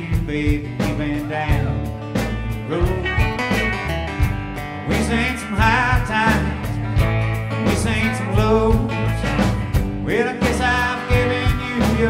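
Live country-rock band playing: strummed acoustic guitar, upright double bass and electric guitar over a steady beat, with a man singing in places.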